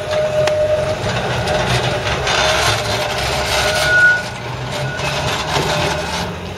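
Blackpool double-deck electric tram running past and pulling away on its rails: a low rumble with a steady whine, and a brief higher whine about two-thirds of the way through.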